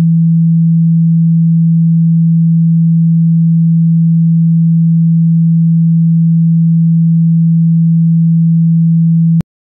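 A loud, steady low tone of one pitch from an iPhone's Water Eject shortcut, the low tone it plays to vibrate water out of the phone's speaker. It cuts off suddenly near the end.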